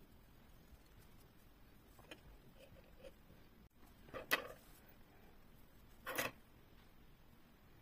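Two short rustling rubs as hands handle a crocheted cotton panel, about four and six seconds in, over faint room tone.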